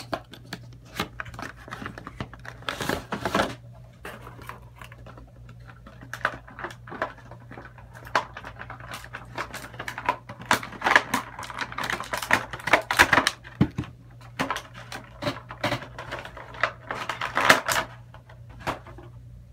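Hands opening an action figure's cardboard window box and clear plastic tray: irregular clicking, crinkling and rustling of packaging, in clusters, as the figure is worked free.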